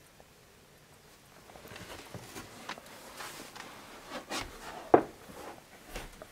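Handheld camera and a person moving in an attic over insulation and wooden joists: soft rustling and scattered small clicks and knocks, with one sharp knock about five seconds in.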